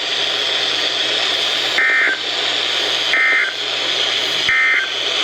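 Three short bursts of warbling two-pitch data tones about 1.4 seconds apart, over the steady hiss of a NOAA Weather Radio receiver: the EAS/SAME end-of-message code that closes the severe thunderstorm warning.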